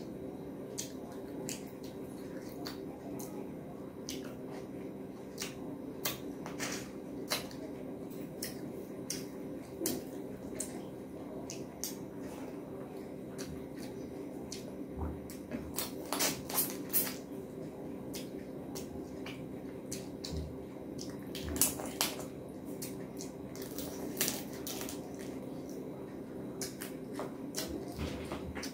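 Close-up eating sounds: many quick wet clicks and squishes from chewing, lip-smacking and fingers mixing rice with curry. A steady low hum runs underneath.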